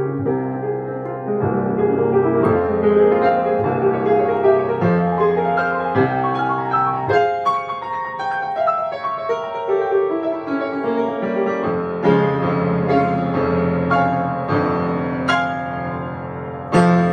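Grand piano played solo: a steady flow of struck notes and chords, the bass falling away for a few seconds in the middle, ending on one loud final chord near the end that is left to ring out.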